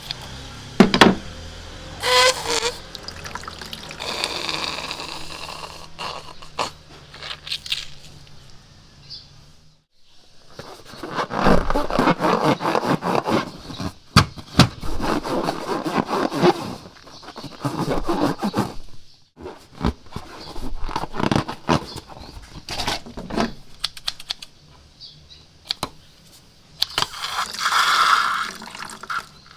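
Slime ingredients being poured out and mixed by hand: wet pouring, squelching and scraping in several stretches, with a longer loud stretch in the middle.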